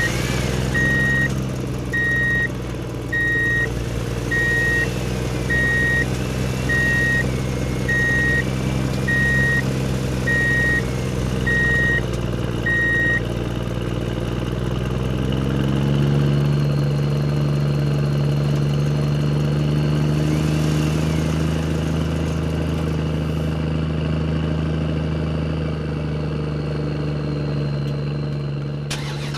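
Toy construction truck's engine sound effect humming steadily, with a reversing beeper sounding about once a second for the first half. About halfway through the beeping stops and the engine pitch rises a little, then holds steady.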